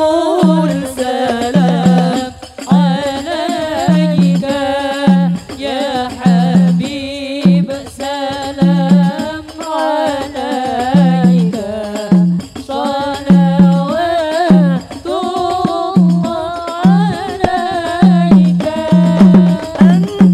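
Devotional sholawat singing by a woman's lead voice, with drums keeping a steady low beat under the melody.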